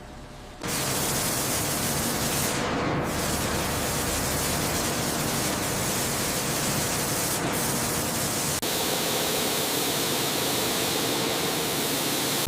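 A loud, steady rushing hiss that starts about half a second in and holds evenly, with one very brief dropout about two-thirds of the way through.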